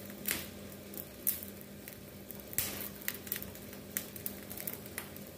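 Cow's foot crackling and popping as it is scorched over the flame of a portable gas stove to loosen its hoof and outer skin. The sharp crackles come irregularly over a steady hiss, with a low hum underneath.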